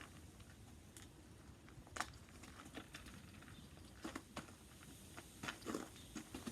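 A cat playing with a toy: a few scattered light taps and scuffles in a quiet room, the sharpest tap about two seconds in.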